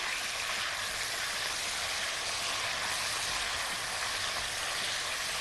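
Strips of chicken breast sizzling steadily in oil in a hot pan as they are turned with a wooden spatula, searing and browning.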